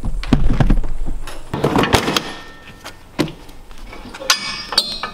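Scattered knocks and metallic clinks as the front of a John Deere compact tractor is handled, with rustling from the handheld camera.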